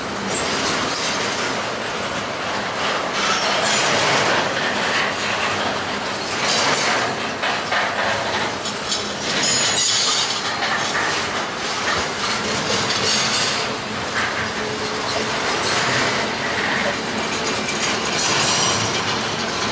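Double-stack intermodal freight train's well cars rolling past close by: a continuous rumble of steel wheels on rail with clacking and metallic rattling, swelling and dipping in loudness as the cars go by.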